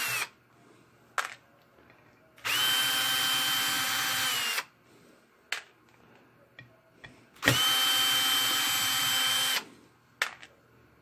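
Milwaukee cordless drill/driver backing screws out of an aluminium heat-exchanger lid. The motor runs at a steady pitch in runs of about two seconds and winds down at the end of each: one ends just after the start, then two more follow. A few sharp clicks fall in the pauses between runs.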